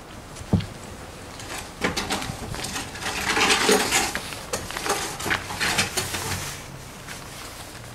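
Clicks, knocks and clatter of gear being handled on a kayak. A dull thump comes about half a second in, and the busiest clattering is around three to four seconds in.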